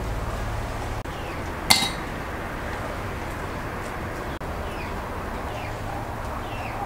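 Steady background noise with faint short bird chirps scattered through, and one sharp ringing clink of kitchenware a little under two seconds in, the loudest sound.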